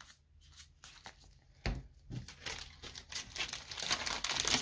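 Foil wrapper of a Magic: The Gathering draft booster pack being torn open and crinkled by hand. A knock comes about a second and a half in, and the crinkling builds to its loudest near the end.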